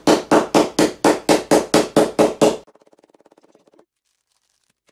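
Wooden meat mallet pounding a frozen, wrapped Hershey's chocolate bar to break it into pieces: about ten loud, sharp blows at roughly four a second, stopping about two and a half seconds in.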